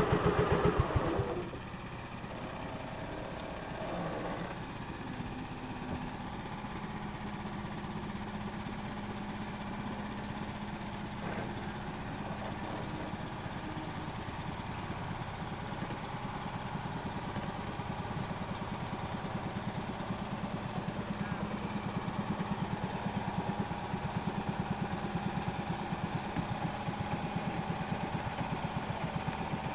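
Engine of a long wooden river motorboat running steadily underway. It is louder for about the first second and a half, then settles to a lower, even hum that builds slightly toward the end.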